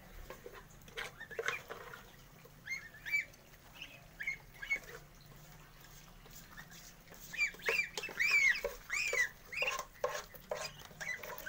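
A flock of young geese and muscovy ducklings peeping at a feeding trough: many short, arched calls, scattered at first and thickest about seven to ten seconds in, with short clicks among them.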